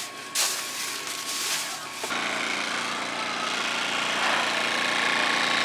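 A plastic bag rustling and crinkling in a cook's hands for about two seconds. Then an engine running steadily at the food truck.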